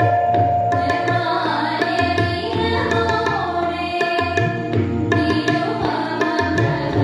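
A young woman singing an Indian classical-style melody with gliding, ornamented phrases, accompanied by tabla strokes over a steady drone.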